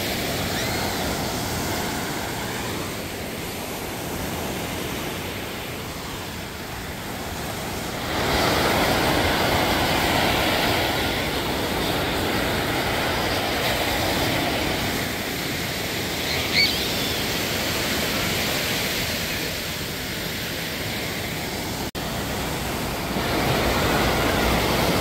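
Steady rushing of ocean surf with wind noise, growing louder about a third of the way in, with one brief sharp sound about two-thirds through.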